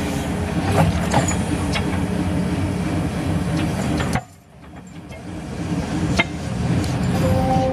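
Engine of a wheeled construction machine running steadily, with a few sharp clicks or knocks. The sound drops out briefly about halfway through, then returns.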